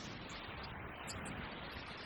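Faint, steady rumbling hiss of a dramatic sound effect, with no distinct events.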